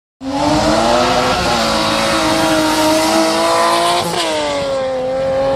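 BMW E36 drag car launching and accelerating hard away down the strip, its engine pitch climbing steadily. About four seconds in, the pitch drops sharply at a gear change and then carries on lower.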